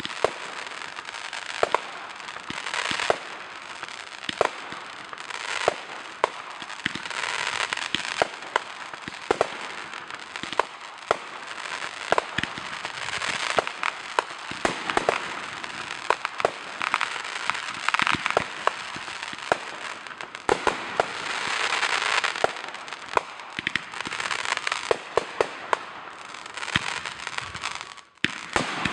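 Aerial fireworks display: shell bursts going off in quick succession as a run of sharp bangs and pops, over swells of crackling. There is a short lull near the end.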